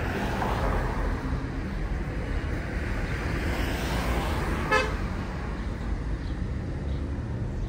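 Steady low road and engine rumble of slow-moving traffic, with one short car-horn toot about five seconds in.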